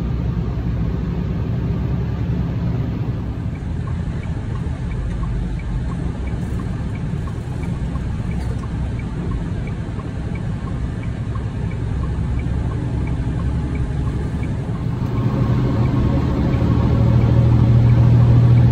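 Semi-truck diesel engine and road noise inside the cab while driving: a steady low rumble, with faint regular ticking at about two or three a second through the middle. About fifteen seconds in, a steady low hum grows louder to a peak near the end.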